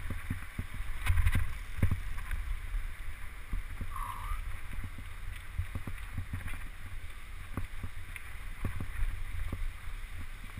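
Mountain bike descending a rough dirt forest trail: wind buffeting the camera microphone, with the tyres on dirt and the bike rattling and knocking over bumps and roots, heaviest about a second in. A brief squeak sounds about four seconds in.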